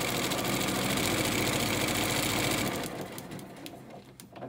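Janome Memory Craft sewing machine stitching steadily and fast through fabric and foundation paper, stopping about three seconds in; a few faint clicks follow.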